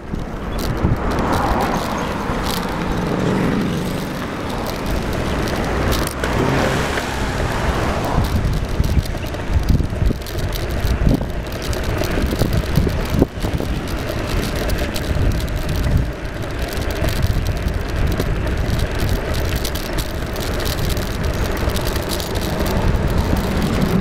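Wind buffeting the microphone of a camera travelling along a road, mixed with steady road noise from the moving vehicle; a faint steady tone sets in about halfway through.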